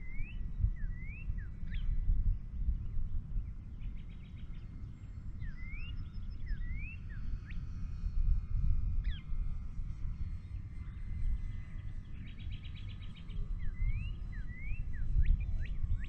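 A songbird singing, repeating phrases of quick rising chirps and short buzzy trills three times, over an uneven low rumble of wind on the microphone.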